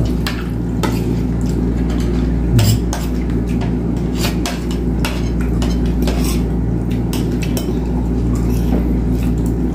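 Metal forks and spoons clinking and scraping on plates as people eat, with many short, scattered clicks over a steady low hum.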